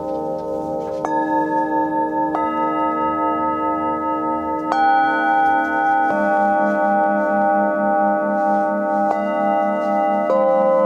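A set of hammered metal singing bowls struck one after another with a padded mallet, about six strikes. Each strike adds a new ringing tone over the earlier ones, which ring on with a slow wavering pulse.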